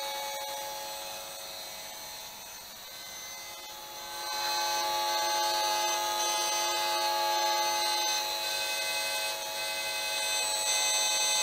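Esmog Spion 5G EMF meter's audio output buzzing as it picks up the electric field, a steady multi-tone buzz. It grows louder about four seconds in as the meter is brought up to a computer monitor, the rise in pitch-stacked buzz being the sign of a stronger field there.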